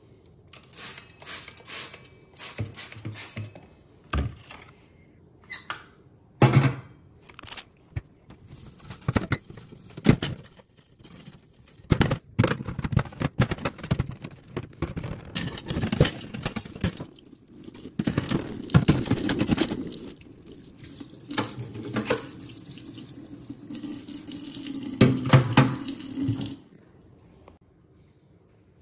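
Water running from a tap in on-and-off stretches, mixed with sharp clicks and knocks of parts being handled under it. It stops about two seconds before the end.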